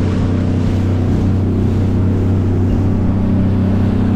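250-horsepower outboard motor running steadily at speed on a bay boat, with the rush of water and wind from the wake.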